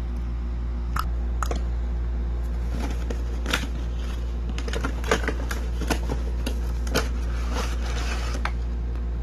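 Cardboard toy box and clear plastic packaging tray being handled and opened: scattered clicks, crinkles and short scrapes over a steady low hum.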